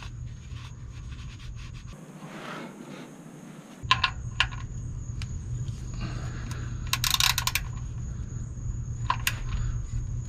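Metallic clicks and clinks of hand tools being handled, with a quick run of clicks about seven seconds in.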